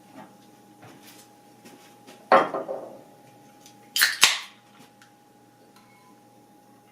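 A knock about two seconds in, then a beer can's pull tab cracked open with a short fizz about four seconds in.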